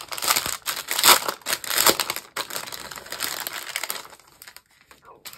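Small clear plastic zip-lock bags of leftover diamond-painting drills crinkling as they are handled, fading out near the end.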